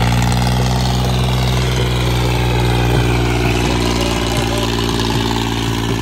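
Diesel engine of an old orange Fiat tractor running steadily under load as it pulls a disc harrow through loose soil.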